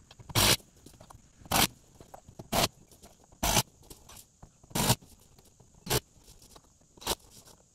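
About seven short rasping scrapes, roughly a second apart, as 1-inch flexible conduit is worked into pre-hung straps under deck joists.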